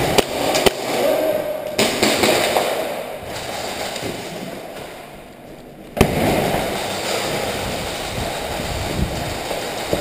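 Airsoft guns firing: a few sharp cracks, three in the first two seconds and a louder one about six seconds in, over a steady noisy background.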